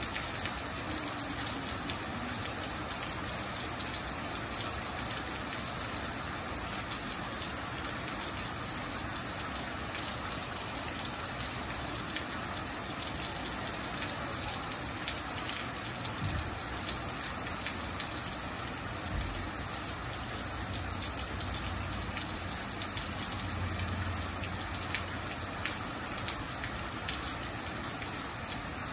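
Steady rain falling on a wet porch and pavement, with many individual drops ticking close by.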